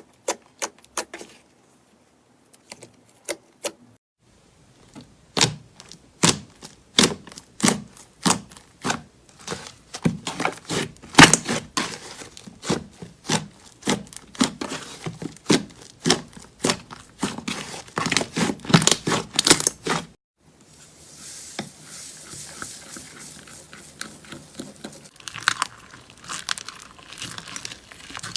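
Slime being pressed and squished, giving sticky clicks and pops: a few at first, then a dense, fast run. About twenty seconds in, the sound changes to a softer crackling and crinkling.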